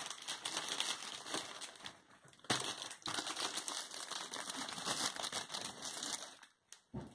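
Clear plastic wrapping crinkling and rustling as a fabric pencil case is handled and slid out of it, with a brief lull about two seconds in; the crinkling dies away shortly before the end.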